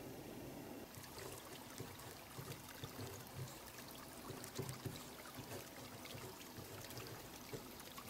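Faint scratching of a pen tip on paper as Japanese characters are handwritten, coming in short irregular strokes.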